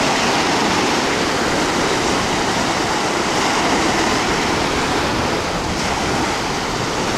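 Sea waves washing in the shallows, a steady rush of surf.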